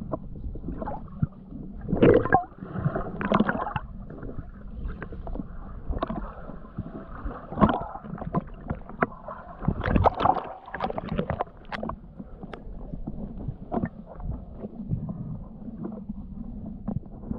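Muffled water sloshing and gurgling, broken by irregular knocks and splashy bumps, the strongest about two, three and a half, seven and a half and ten seconds in.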